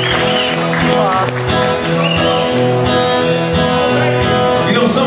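Acoustic guitar strummed in a steady rhythm, playing a repeating chord pattern with a new bass note every half second or so.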